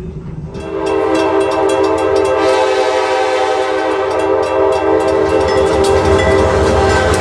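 Steam locomotive whistle sounding one long blast of about six seconds, a chord of several tones held steady, over the rumble and clicking of the moving freight train.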